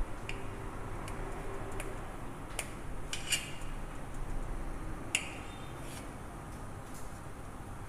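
A kitchen knife cutting through a soft steamed gram-flour cake on a steel plate, the blade making a few light clicks and scrapes against the metal, the loudest a little past three seconds in and about five seconds in.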